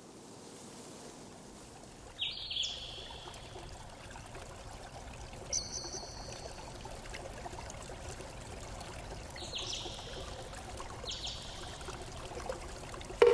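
Running water trickling steadily, with four short high bird calls spread through.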